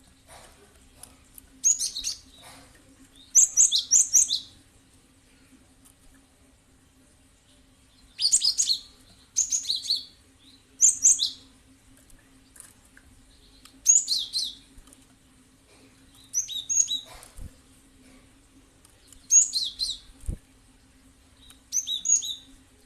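Cinereous tit (gelatik batu) singing in short, high, rapid chirping phrases, about nine of them, each lasting under a second and spaced one to three seconds apart. A faint steady hum runs underneath.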